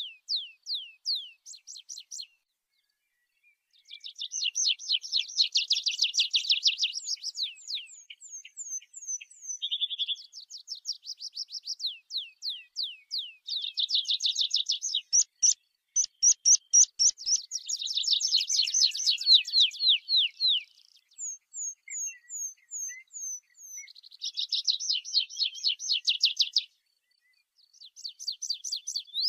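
Tree pipit singing: phrases of fast repeated notes and trills, some phrases ending in a run of slower, high, down-slurred notes. There are two short pauses between phrases, one about two seconds in and one near the end.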